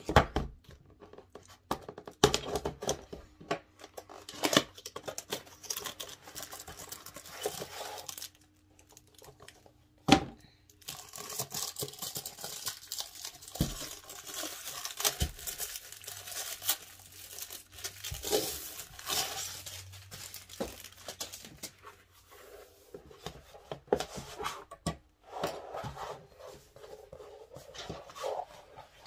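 Packaging of a Knodel desk mat being opened: the box handled and opened, plastic wrapping torn and crinkled, with several sharp knocks and clicks among the rustling.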